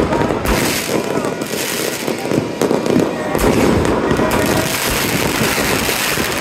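A continuous barrage of fireworks: many overlapping bangs, pops and crackles from aerial shells and rockets going off all around, with no pause.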